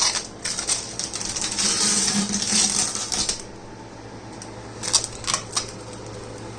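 Protective plastic film being peeled off a new stainless steel range hood: a dense crackling rip for about three seconds, then a few sharp ticks, over a low steady hum.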